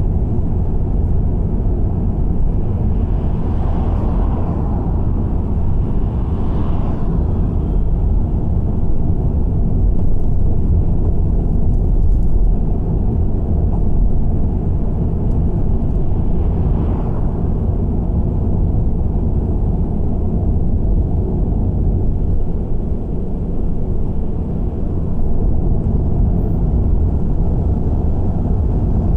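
Steady low rumble of a car driving: road and engine noise picked up by an in-car camera, with brief swells about 4, 7 and 17 seconds in.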